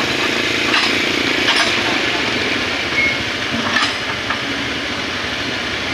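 Excavator engine running steadily under load, with a few short sharp knocks: two in the first two seconds and another near the four-second mark.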